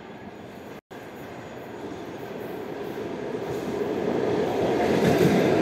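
EP2D electric multiple unit approaching and running into the platform. Its rumble grows steadily louder and is loudest near the end.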